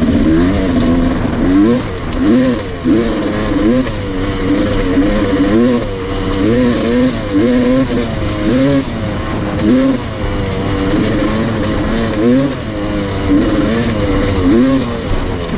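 Dirt bike engine being ridden hard, its pitch rising and falling about once a second as the throttle is opened and closed over rough ground.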